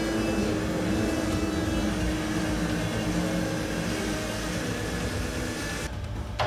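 Forklift running while it moves a crash-test barrier cart, a steady mechanical hum and whine over a low rumble. It cuts off abruptly near the end.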